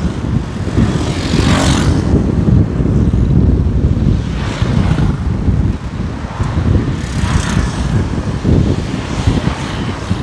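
Road noise from a moving vehicle in city traffic, with wind buffeting the microphone as a heavy low rumble. Three brief rushing sounds come about three seconds apart.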